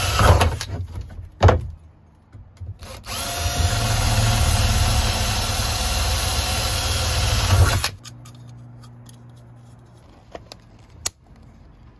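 Power drill boring through a thin metal bracket plate: a short burst of drilling at the start and a knock, then a steady run of about five seconds that cuts off suddenly. A few light clicks follow.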